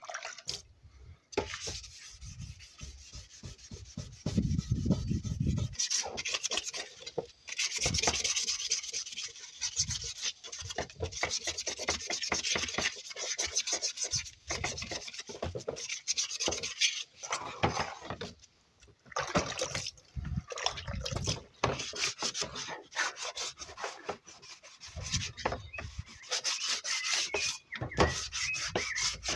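Sandpaper rubbed by hand in fast back-and-forth strokes, sanding down the finish of a bicycle frame and then a five-spoke BMX mag wheel. It comes in long scratchy runs, with a few brief pauses.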